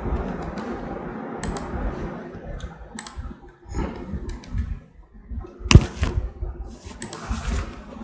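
Computer keyboard keystrokes and mouse clicks, scattered and irregular, with one sharper, louder click a little before six seconds in. A low background noise fills the first couple of seconds.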